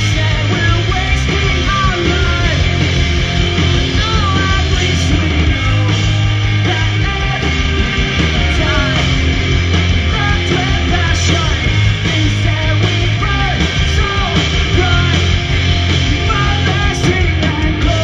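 Pop-punk band playing live: loud distorted electric guitars, bass and drums, with a singer's voice over the top.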